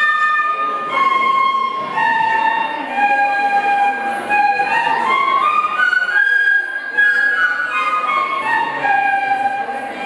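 Several bamboo transverse flutes playing a slow melody together in long held notes. The line steps down over the first few seconds, climbs to a higher note a little past the middle, then steps down again to a low held note near the end.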